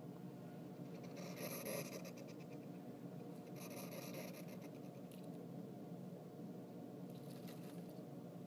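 African pygmy hedgehog hissing twice in short breathy bursts, a sign she is irritated at being approached. Near the end come light scratchy rustles in wood-shaving bedding.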